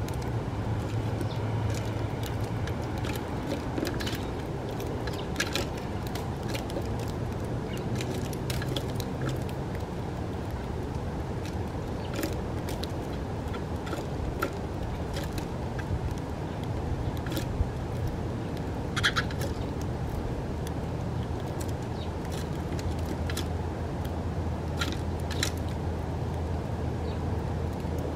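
House sparrows at a seed feeder giving short, scattered chirps and clicks, a few every couple of seconds, over a steady low rumble of traffic.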